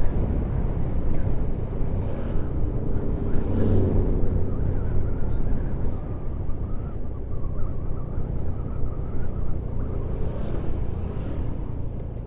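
Steady engine and road rumble of a moving vehicle, with a few brief whooshes about two, four, and ten to eleven seconds in.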